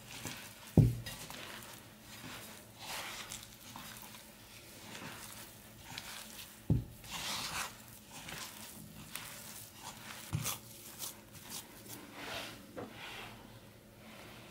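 Hands squeezing and rubbing crumbly cottage-cheese-and-flour dough in a ceramic bowl: repeated soft rustling and squishing. Three dull knocks of the bowl, the loudest about a second in.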